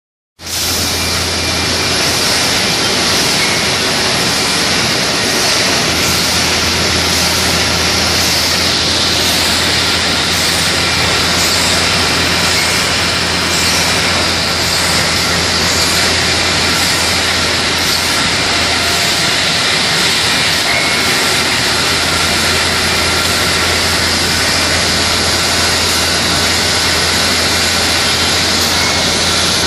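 Toilet paper and kitchen towel converting line running: a loud, steady machine noise with a low hum underneath.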